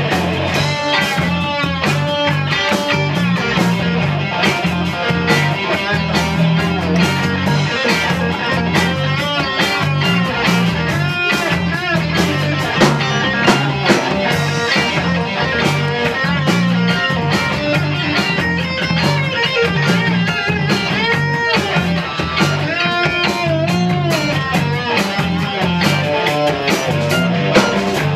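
Live rock band playing an instrumental passage without vocals: an electric guitar lead with bending notes over bass, drum kit and rhythm guitar.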